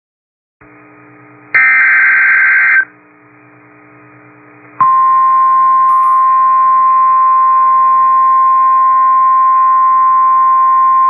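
NOAA Weather Radio emergency alert: about a second and a half in, a loud, harsh burst of SAME digital header data lasts just over a second. From about five seconds in, the steady single-pitch 1050 Hz warning alert tone sounds without a break. A faint hum comes through from the radio between the two.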